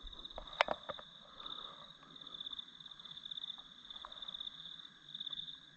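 Faint night chorus: a steady, high-pitched trill of calling animals that pulses in runs, with one sharp click a little over half a second in.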